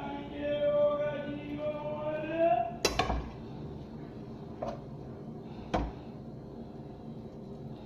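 Utensil knocking against a dish as food is served: one sharp clink about three seconds in, then two lighter ones a couple of seconds apart. A pitched, melodic sound fills the first few seconds.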